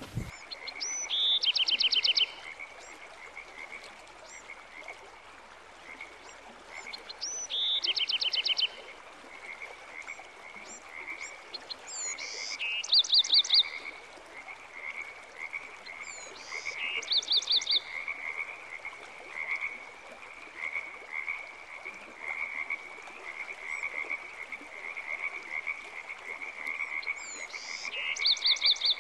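Frogs croaking: a steady, fast-pulsing chorus throughout, with five louder bursts of quick, rapid croaks of about a second each.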